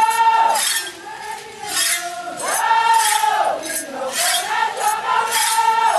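A group of women singing a chant together in long held notes, with repeated sharp metallic clinks beating along.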